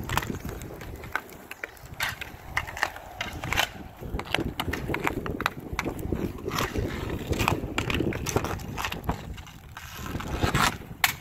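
Inline skate wheels rolling on asphalt, with many sharp, irregular clacks of hockey sticks striking a puck as it is stickhandled, passed and shot.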